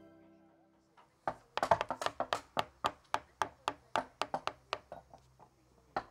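Wooden mallet striking a woodcarving chisel: a quick, even run of sharp knocks, about four a second, starting about a second in.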